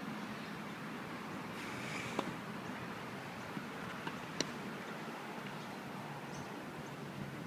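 Steady outdoor background noise with a faint low hum, broken by two sharp taps of a tennis ball, one about two seconds in and a stronger one a little past four seconds.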